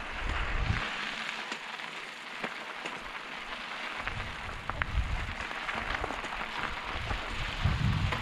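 Mountain bike tyres rolling over a dirt and gravel trail: a steady hiss with scattered small clicks and knocks. Wind buffets the microphone now and then.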